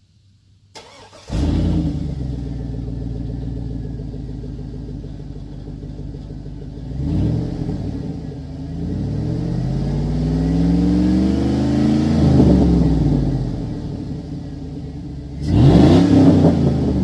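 Chevy Avalanche V8 with its exhaust dumped right after the catalytic converters: a click, then the engine starts about a second in and idles loud. It is blipped once, then revved up slowly and let back down, and blipped again near the end.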